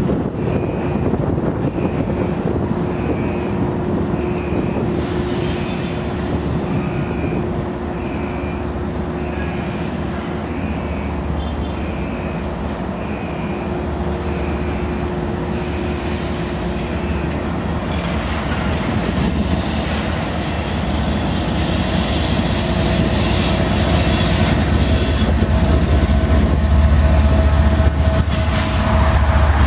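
Steady road and wind rumble from a moving vehicle, then a Canadian National diesel locomotive drawing close, its engine and rolling wheels growing louder through the second half.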